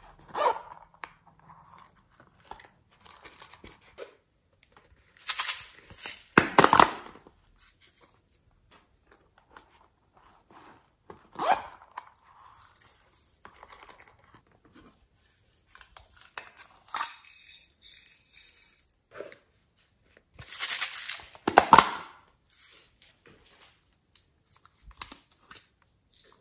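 Zippers of small fabric pencil pouches being pulled open and shut in several sharp zipping bursts a few seconds apart. Between them come quieter patters of sequins and glitter being dropped onto slime.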